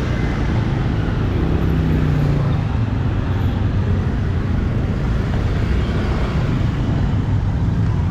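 Busy street ambience of steady motor traffic, with one vehicle's engine note standing out for about a second near the two-second mark.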